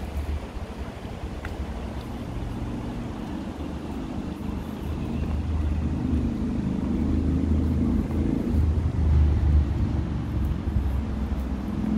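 Low, steady road-traffic rumble, swelling louder about halfway through and staying loud.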